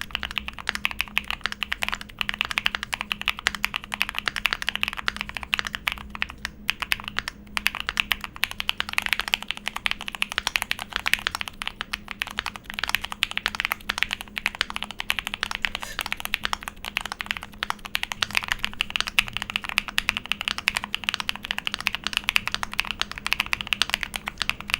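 Continuous fast typing on a Keychron Q2, a gasket-mounted aluminium 65% mechanical keyboard modded with polyfill in the case and a custom plate, here fitted with alternative switches for a sound test. Many keystrokes a second without a break, over a faint steady low hum.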